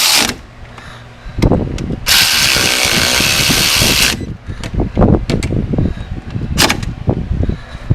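A power tool runs for about two seconds, tightening the brake caliper bolts, and gives a second short burst near the end. Metal knocks and clanks of tools and brake parts come in between.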